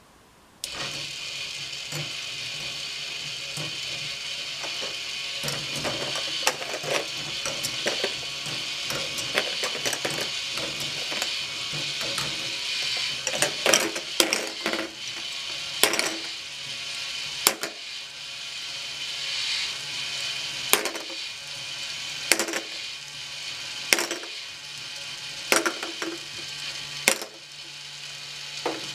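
K'nex helix lift's motor and plastic gears starting up about a second in and running with a steady whir and rattle. Plastic balls clack through the lift, with sharp knocks about every second and a half in the second half.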